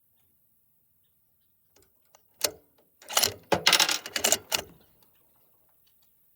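Bolt-action rifle being handled: a sharp metallic click, then about a second and a half of quick clicks and rattles, like a bolt being worked.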